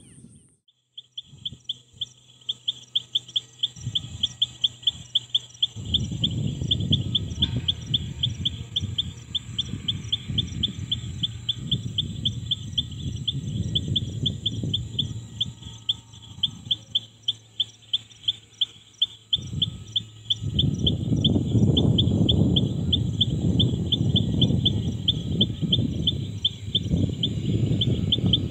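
Rapid, evenly paced chirping, several chirps a second, over a low rumble that swells about six seconds in and again, louder, about twenty seconds in.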